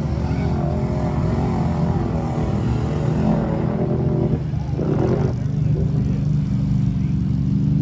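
Vehicle engine running steadily, with a short break in its tone about halfway through before it settles again.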